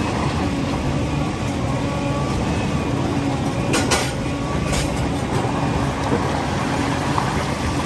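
Large Liebherr excavator's diesel engine running steadily, with a few sharp knocks about four seconds in and again just before five.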